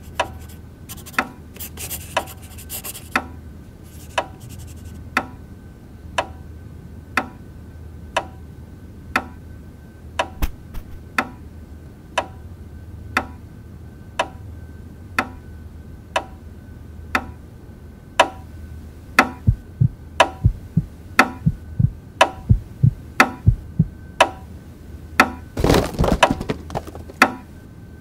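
Clock ticking, sharp and regular at about one tick a second, then speeding up to about two a second for the last ten seconds, where deeper thuds join the ticks. A pen scratches on paper in the first few seconds, and a short burst of scraping or rustling comes near the end.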